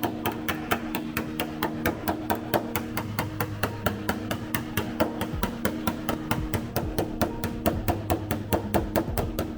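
Rapid, even hammer taps on a car's sheet-metal roof panel, about five a second, over background music.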